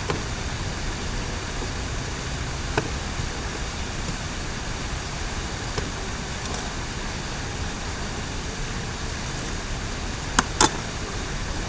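A tie-down strap being tightened around plastic containers, with a few light clicks and two sharp clicks near the end, over a steady background rumble like road traffic.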